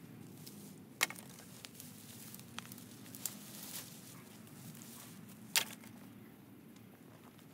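Dry twigs and brush crackling and snapping underfoot and in the hands as someone pushes through undergrowth. There are a handful of sharp snaps, the loudest about a second in and another at about five and a half seconds.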